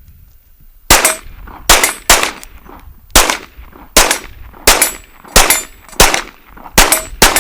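Kriss Vector SDP 9mm pistol firing about ten single shots at an uneven pace, sometimes two in quick succession. Several shots are followed by a short ring from a steel target plate being hit.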